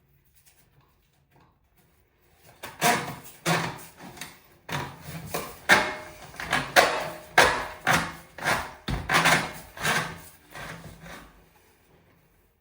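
A hand saw cutting with rhythmic back-and-forth strokes, about two a second, starting about two and a half seconds in and stopping near the end.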